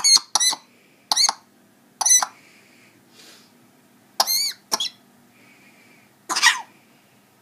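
African grey parrot imitating a man's deep cough: seven short coughing calls, some in quick pairs, the last one harsher than the rest.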